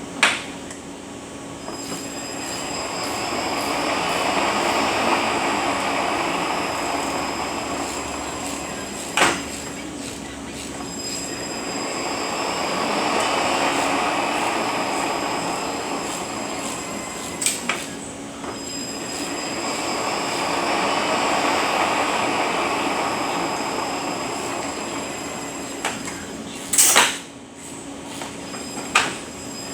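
Rebuilt Eaton Fuller RTLO-18918B 18-speed truck transmission running on a dyno test stand, its gear noise swelling and fading in slow cycles about every eight or nine seconds. A sharp click or clunk comes near each quiet point between the swells.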